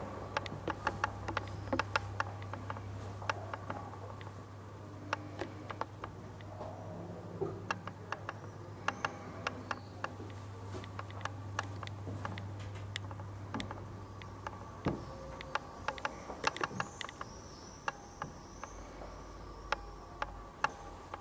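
Irregular sharp clicks and taps of footsteps on a tiled floor, over a steady low hum that cuts off suddenly about fifteen seconds in.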